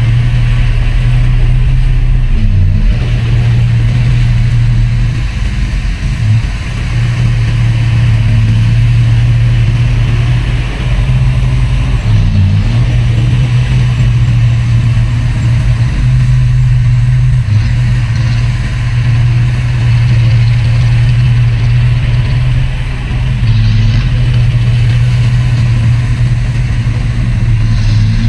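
Heavy diesel engine of earthmoving machinery running steadily under load, a deep continuous drone that dips briefly a few times.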